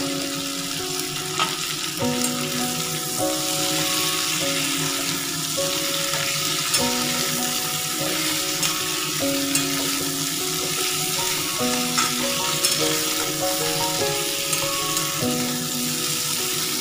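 Mixed vegetables (eggplant, potato, radish, flat beans) sizzling as they fry in oil in a metal kadai, with a metal spatula stirring and clacking now and then against the pan. A soft stepwise melody plays underneath.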